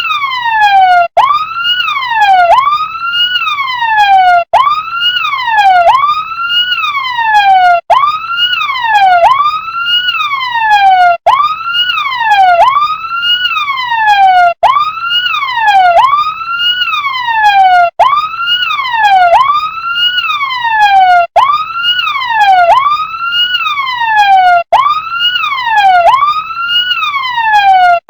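Electronic siren of a toy RC fire truck: a buzzy tone that rises quickly and falls slowly, over and over, about every second and a half to two seconds. It cuts out for an instant about every three and a half seconds.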